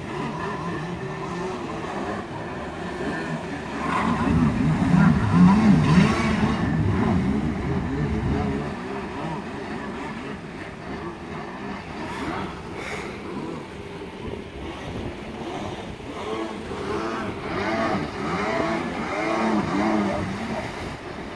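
Jet ski engines revving up and down as the riders carve tight turns and tricks, the pitch rising and falling constantly and loudest a few seconds in.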